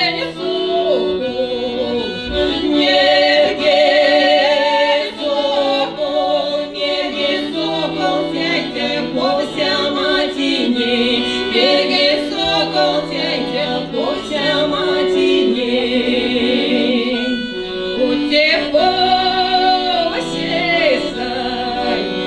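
Two women singing a Finno-Ugric folk song together, their voices held with a wide vibrato, over a steady accordion accompaniment.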